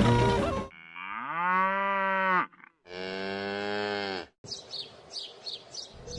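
Two long cow moos one after the other, the first rising in pitch as it starts and the second dropping at its end, followed by faint, quick bird chirps. A louder noisy sound cuts off within the first second.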